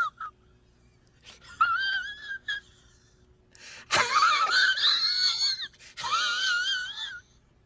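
High-pitched, wavering wail from a voice-like sound effect. Short squeaky bits come between about one and two and a half seconds in. A louder wail begins suddenly at about four seconds and runs about a second and a half, and another follows near six seconds, ending shortly before the close.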